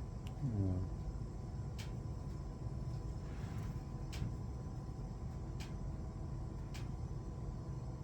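Steady low room hum with a few faint, scattered light clicks and a brief soft rustle near the middle, and a short murmured 'hm' from a voice under a second in.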